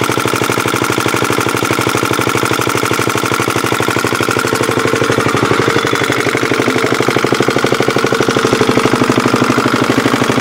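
Rebuilt antique Yanmar diesel engine running steadily with an even, rapid diesel knock. It is running smoothly on its rebuilt cylinder head.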